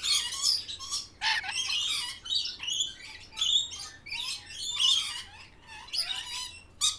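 Birds chirping and squawking in a busy run of short, irregular calls, with a brief lull near the end.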